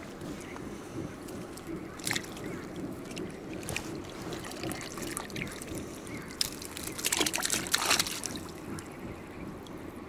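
Water trickling and splashing from a mesh keepnet as crucian carp are let back into the river, with scattered sharp clicks; the splashing is loudest about seven to eight seconds in.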